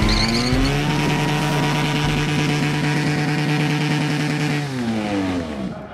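Motorcycle engine revved up and held at steady high revs, then dropping off and fading out near the end.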